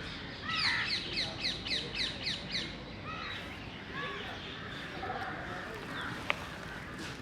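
A bird calling a quick series of about eight sharp, falling notes, roughly three a second, then a few single calls, over a steady outdoor background hiss. A single sharp click sounds near the end.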